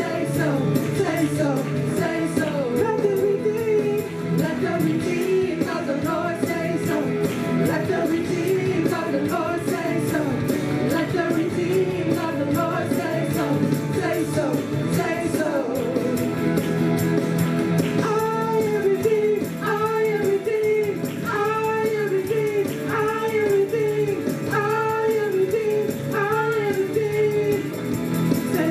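Two women singing a worship song into microphones over steady instrumental backing. From about eighteen seconds in, a short sung phrase repeats at an even pace.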